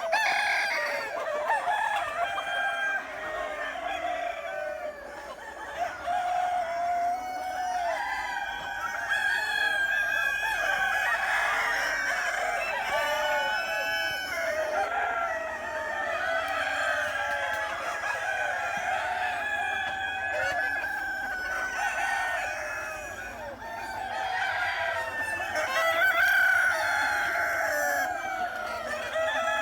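A flock of chickens calling and clucking together, with roosters crowing now and then, many voices overlapping without a break.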